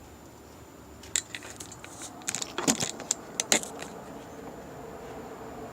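A quick run of sharp clicks and light rattling from about one to four seconds in, like small hard objects being handled, over a steady faint hum with a thin high whine.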